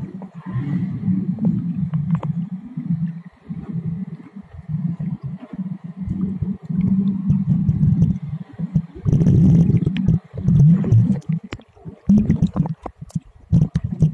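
Muffled underwater noise picked up by a camera held below the surface: low rumbling and gurgling water in uneven surges. From about nine seconds in it gets louder, with sharp clicks and knocks as the camera is moved.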